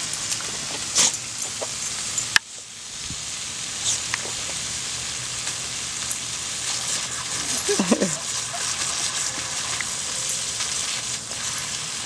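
Water hissing as it sprays from the end of a garden hose onto grass, broken by sharp splashes and snaps as a dog bites and laps at the spray.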